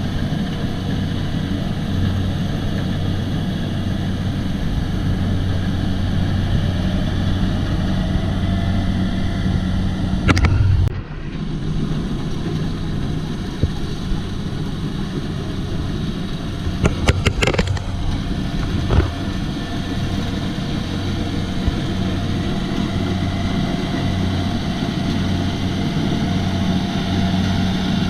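Kubota DC-70 combine harvester's diesel engine running steadily, with a few sharp knocks about a third of the way in and again a little past the middle.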